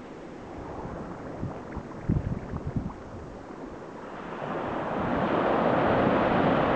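Small waves washing on a sandy beach. About four seconds in a wave breaks at the shoreline and foams up the sand, a louder rush that holds. Wind knocks on the microphone a few times around two seconds in.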